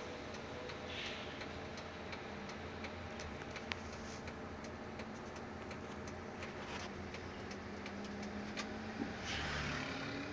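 Bus engine running steadily, heard from inside the cabin, with irregular ticking and clicking rattles throughout. A short hiss comes about a second in and again near the end, where the engine pitch rises.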